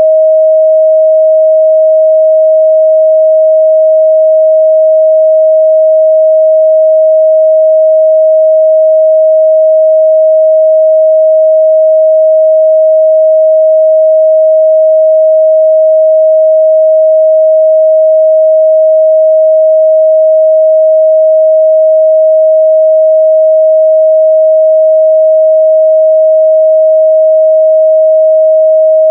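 A 631 Hz sine-wave test tone held steady at one pitch and one loud level, a pure single tone with no overtones.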